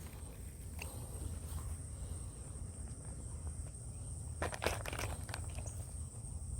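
Quiet outdoor ambience: a steady low rumble and a thin, steady high-pitched whine, with a few brief rustles or clicks about a second in and again around four and a half to five seconds in.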